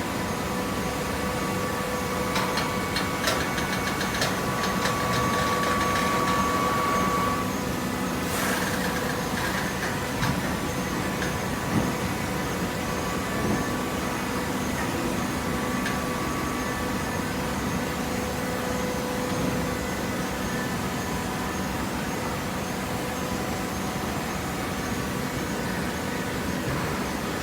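PET bottle baling machine running with a steady motor hum. Rattling clicks come in the first several seconds, and a short rushing noise follows about eight seconds in.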